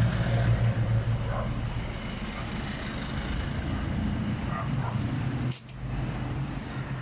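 A vehicle engine running steadily at idle, a low even hum. About five and a half seconds in there is one brief sharp sound.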